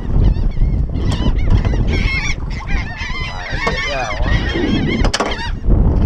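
Gulls calling over the boat, many short overlapping squawking cries, over a steady low rumble.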